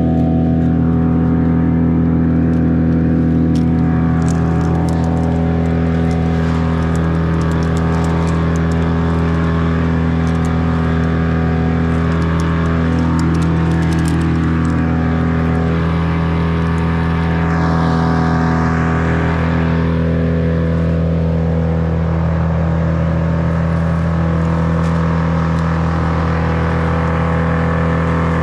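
An engine running steadily at constant speed, its pitch unchanging, with no revving or cutting load.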